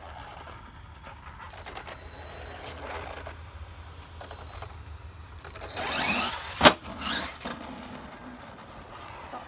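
Traxxas Maxx RC monster truck's brushless electric motor whining in short bursts as it is driven, with a louder rising-and-falling whine about six seconds in. A single sharp knock comes right after that surge.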